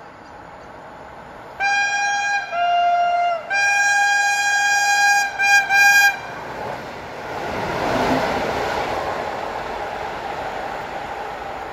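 Two-tone horn of an approaching electric passenger train: a high note, a lower note, a long high note, then two short toots. The train then passes close by with a swelling rush and rumble that peaks a couple of seconds after the horn and slowly fades.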